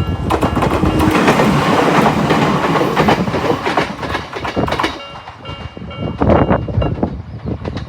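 A Jōmō Electric Railway train passing over a level crossing, its wheels clattering over the rails and covering the crossing's warning bell. As the train clears, about five seconds in, the repeating electronic ringing of the renewed Nikko-type crossing alarm is heard again.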